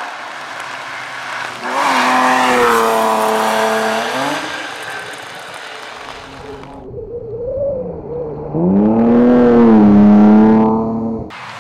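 BMW 325i (E36) rally car's straight-six engine revving hard, its pitch climbing and dropping with gear changes. The sound breaks off suddenly twice.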